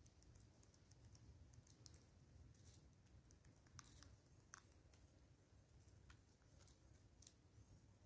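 Faint, irregular sharp clicks of a southern red-billed hornbill's bill picking up maize kernels from the feeding stump, over a quiet low background rumble.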